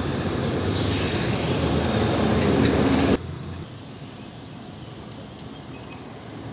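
Diesel engine of a container truck hauling a trailer, passing close and growing louder. About three seconds in, the sound cuts abruptly to a much quieter, steady distant rumble of traffic as a dump truck approaches.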